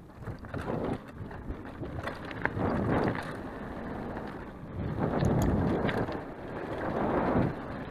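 Mountain bike rolling over rough ground and cobblestones, its tyres rumbling and its parts rattling with scattered clicks. Wind buffets the camera microphone in surges.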